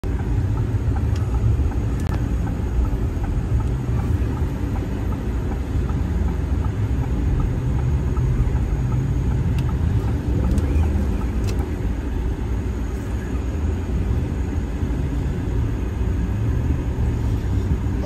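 Steady low rumble of a vehicle driving on a snow-covered road, heard from inside the cabin: engine and tyre noise, with a few faint ticks.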